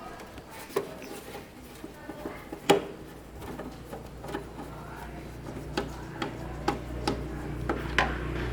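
Scattered light clicks and knocks, like small hard parts being handled. A low steady hum comes in about halfway through and slowly grows louder.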